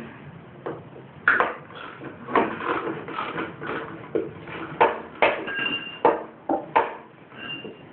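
Irregular metallic knocks and clinks of hand tools and metal parts being handled while a lawn mower engine is taken apart, a couple of them ringing briefly.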